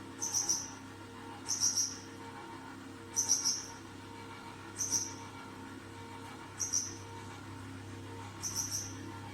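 H.Koenig HF340 compressor ice cream maker running: a steady low hum, with a short, high chirping squeak repeating about every second and a half.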